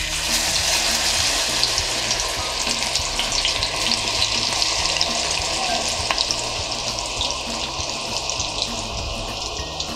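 Corn kernels coated in a spiced flour batter dropped by hand into hot oil in a steel kadai, sizzling and crackling as they deep-fry. The sizzle starts suddenly and slowly eases.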